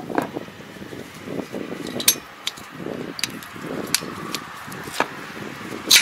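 Metal tools and fittings clinking against the gearbox housing of a Kobashi 240 rotary tiller as it is worked on by hand: about six sharp clinks, the loudest near the end, over rustling handling noise.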